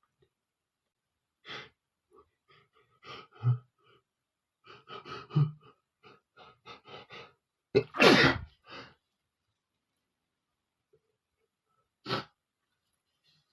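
A man's sneeze build-up: a run of short, gasping in-breaths and sniffs, then one loud sneeze about eight seconds in. His nose is irritated by flowers.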